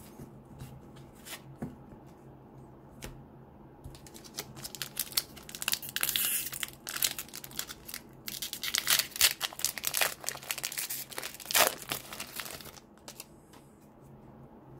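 Foil wrapper of a trading-card pack being torn open and crinkled: a dense crackling that starts about four seconds in and stops shortly before the end, after a few light clicks.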